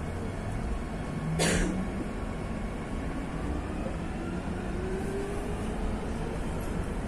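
Madrid Metro train running, heard inside the carriage as a steady rumble. A short loud burst of noise comes about a second and a half in, and a faint whine slowly rises in pitch over a few seconds.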